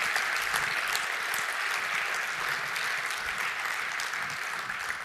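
Audience applauding, many hands clapping steadily and beginning to thin out near the end.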